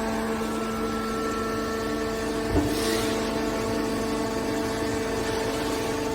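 Hydraulic baler running with a steady hum, with a single knock about two and a half seconds in.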